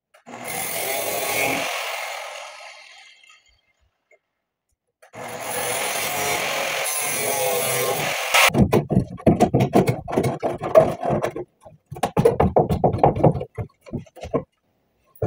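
Metalworking power tool on a pickup's steel lower body panel: it runs and trails off, runs again and cuts off sharply. Then comes a rapid, irregular crackling.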